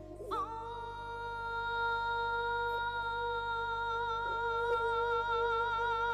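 Manipuri pena music: a long note starts just after the beginning and is held with a slight wavering vibrato, over a steady lower tone.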